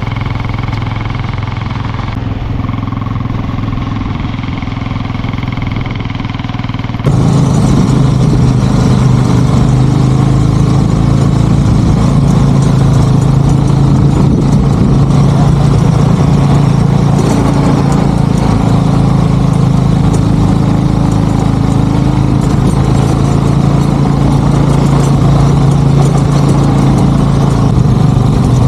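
Sidecar motorcycle's engine running steadily while riding, a constant hum with road and wind noise. About seven seconds in, the sound jumps suddenly louder and fuller.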